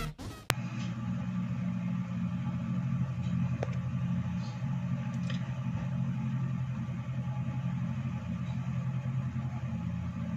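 A steady low hum, with a short click about half a second in and a few faint ticks later on.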